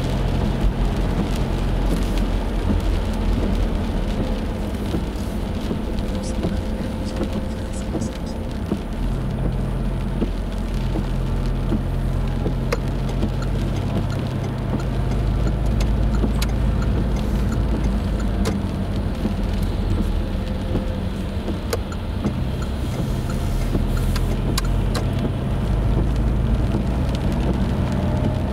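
Car driving, heard from inside the cabin: the engine runs steadily under a constant hiss of tyres on a wet road, with scattered light ticks. Near the end a faint rising whine comes in as the car picks up speed.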